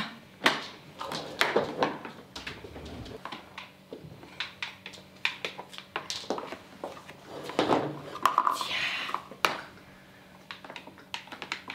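Scattered light knocks and clicks of small pink toy cones being picked up and set down on a plastic high-chair tray, with a brief squeak about eight seconds in.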